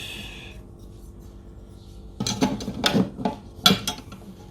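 Metal clinks and knocks from the head unit's metal mounting brackets and hardware being handled, a short cluster of them about two seconds in.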